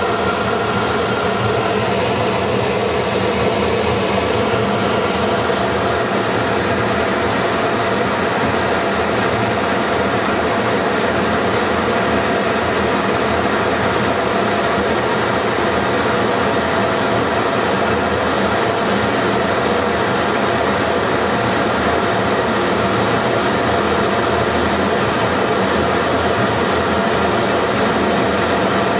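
Jet aircraft engine and airflow noise heard from inside the cockpit, running steadily with a faint constant whine, on the approach to landing.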